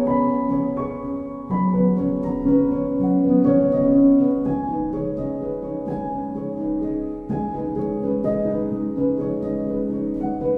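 Gentle instrumental background music, with held chords and plucked or struck notes changing every second or two.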